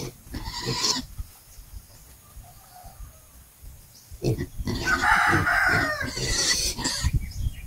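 A rooster crowing once, about five seconds in, a long call lasting well over a second.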